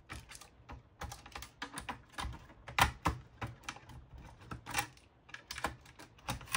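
Irregular clicks and taps of hard plastic as the Telstra Cobra XH modem's casing and circuit board are handled and prised at by hand, the loudest clicks a little under three seconds in.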